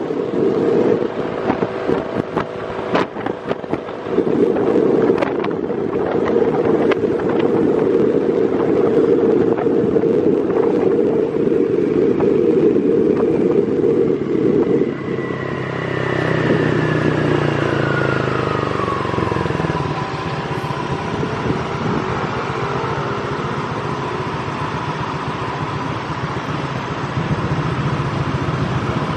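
Motorbike engine and road traffic, with a low rushing noise like wind on the microphone for the first half. About sixteen seconds in, an engine's pitch falls, then settles to a steady drone.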